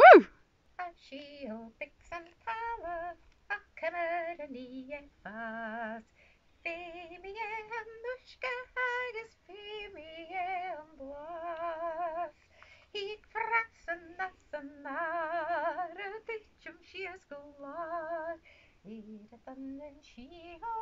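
A woman singing solo and unaccompanied, phrase by phrase with short breaks, with a wide vibrato on the held notes. A sharp click sounds at the very start.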